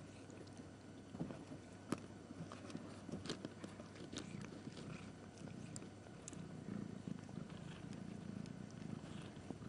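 Mother cat purring faintly, a low steady rumble, with scattered small clicks over it.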